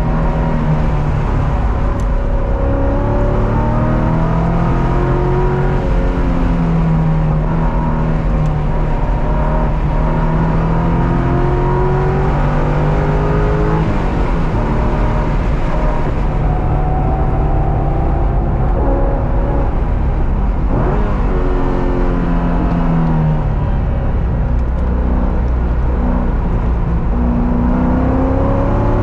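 Car engine at speed on a race track, its pitch climbing repeatedly under acceleration and dropping at shifts and for braking, over constant road and wind noise.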